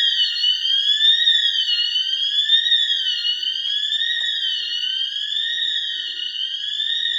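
Store alarm sounder wailing, really loud, its high electronic tone sweeping up and down about once every second and a half, without a break.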